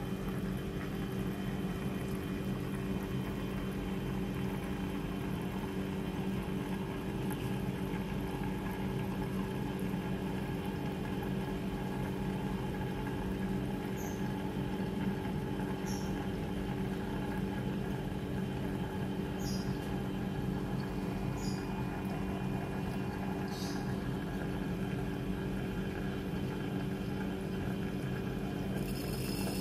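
A steady low hum made of several pitched tones, with a few faint, short high chirps in the second half and a hiss starting near the end.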